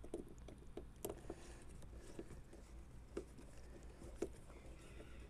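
Screwdriver backing a screw out of a zero-turn mower's control-panel cover: a handful of faint, small clicks and scrapes, spaced irregularly about a second apart.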